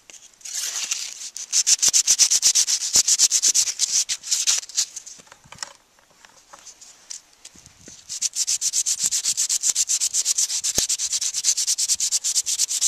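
Sandpaper rubbed by hand along a small metal crossbow trigger guard in quick back-and-forth strokes, several a second. The strokes pause for a couple of seconds around the middle, then start again. This is the sanding that prepares the part for black paint.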